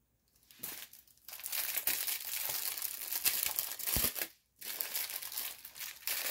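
Clear plastic wrapping of a rolled diamond painting kit crinkling as it is handled and unwrapped, in two long stretches with a short pause about four and a half seconds in. A low thump comes just before the pause.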